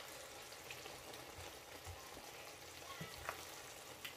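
Pan of pumpkin leaf stew with fish simmering with a faint, steady sizzle while a wooden spoon stirs it, with a few soft clicks about a second apart in the second half.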